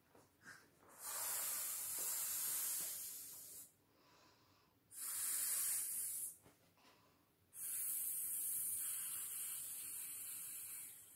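Three long breaths blown by mouth into the valve of an inflatable vinyl paddling pool, each a rush of air, with short quiet pauses for inhaling between them.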